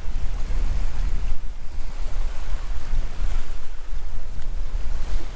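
Steady wind rumbling on the microphone, over the wash of sea waves on the shore.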